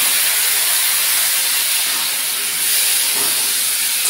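Water splashed into a hot kadai of frying vegetables, hissing and sizzling steadily as it flashes into steam.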